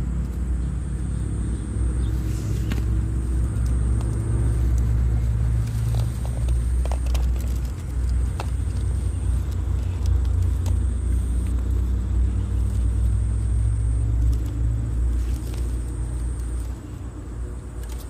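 Steady low engine rumble, with low tones that drift slightly in pitch, breaking up and fading near the end. A thin high whine comes and goes over it.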